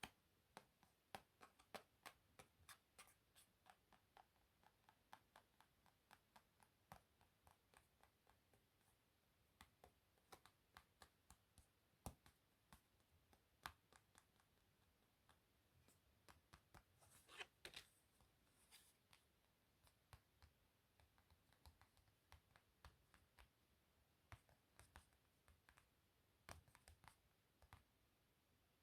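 Playing cards handled close to the microphone: faint, irregular clicks and taps as the cards are flicked and tapped, with a brief rustle a little past halfway.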